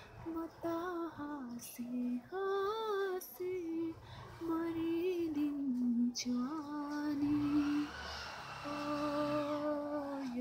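A woman singing a slow Nepali song in a single voice line, holding long notes with short breaths between phrases.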